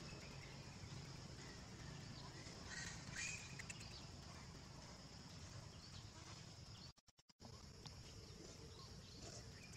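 Quiet outdoor background with a faint, brief high call about three seconds in. The sound cuts out completely for a moment near seven seconds.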